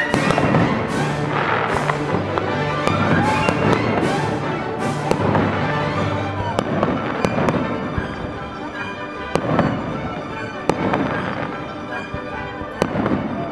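Aerial fireworks shells bursting: a string of sharp bangs and crackles at irregular intervals, thickest in the first half, with orchestral music underneath.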